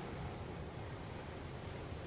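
Ocean surf washing against a rocky shore: a steady rush with a deep rumble underneath, with no single wave crash standing out.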